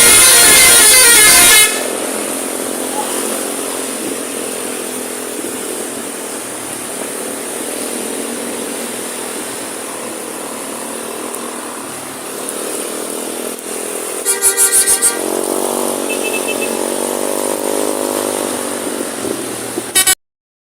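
Indonesian bus 'telolet' multi-tone air horn playing a loud tune that stops about a second and a half in, then a bus engine running steadily. Past the middle comes a quick run of about six short horn toots, followed by a softer wavering tone.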